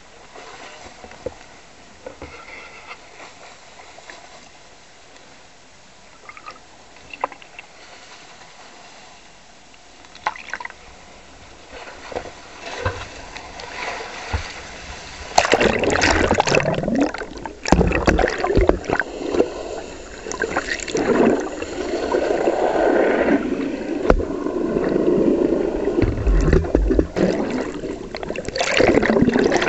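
Water lapping quietly with a few small ticks and splashes, then, about halfway through, a sudden loud rushing and gurgling of seawater as the camera's microphone is plunged under the surface and held there.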